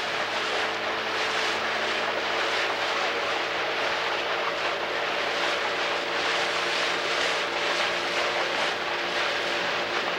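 Outboard motor of a coaching launch running steadily at a constant cruising speed, with a steady hiss of wind and water over it.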